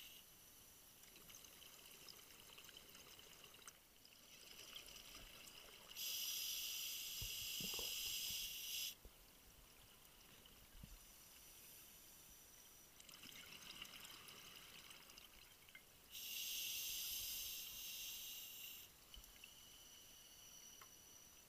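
Scuba diver's regulator breathing underwater: two long hissing breaths about ten seconds apart, with quieter bubbling from the exhalations between them.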